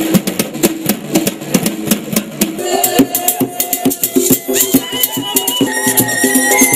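Music with drums and a shaken rattle beating a quick, dense rhythm; held melodic notes come in about halfway through.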